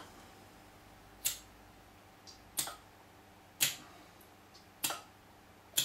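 Airsoft gas can charging a gas blowback pistol's metal magazine through its fill valve: several short bursts of gas, about a second apart.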